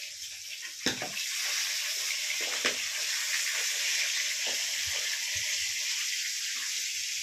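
Battered fish pieces frying in hot oil: a steady sizzle with a few sharp crackles and pops.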